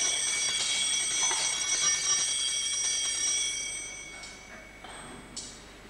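Altar bells ringing for the elevation of the chalice at the consecration, several high tones sounding together, fading out about four seconds in.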